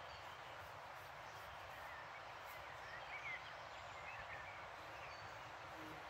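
Steady rushing of a river, with faint bird chirps scattered over it, most of them in the middle.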